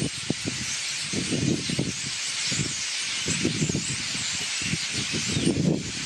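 A large flock of small birds chattering together in a dense, continuous din, with wind buffeting the microphone in irregular low gusts.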